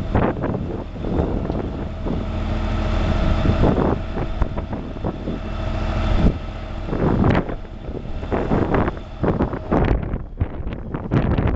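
Wind buffeting the microphone in repeated gusts, with a steady machine hum underneath that stops about six seconds in.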